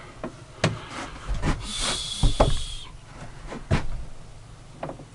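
A series of wooden knocks and clicks, with a brief scraping slide about two seconds in, from the homemade table saw's plywood tilting carriage and wooden case being handled by hand.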